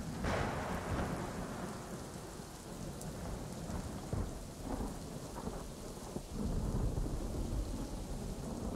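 Steady rain with low rolling rumbles of thunder, swelling about a second in and again from about four to seven seconds in: a rain-and-thunder ambience sample, with the music dropped out.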